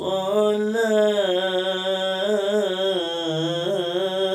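A solo male voice reciting the Quran in the melodic qiro'ah style in maqam Bayati, holding one long ornamented melisma with wavering turns. The pitch steps down slightly about three seconds in.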